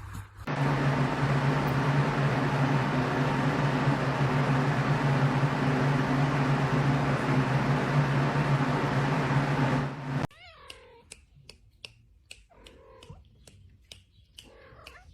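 A loud steady whooshing hum, like a small motor or blower, runs for about ten seconds and cuts off abruptly. After it, a cat meows a few times amid faint clicks.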